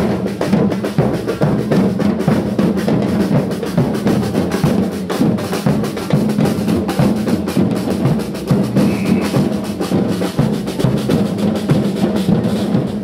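Drums beaten continuously by marchers in a procession: a dense, unbroken run of quick strikes with strong low beats.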